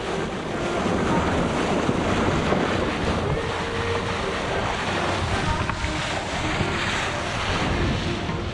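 Boat running at sea: a steady rush of wind buffeting the microphone mixed with water and spray noise against the hull.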